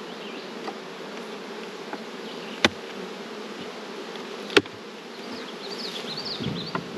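Honeybees buzzing steadily around an opened hive, with two sharp knocks from the wooden hive boxes being handled, about two and a half and four and a half seconds in.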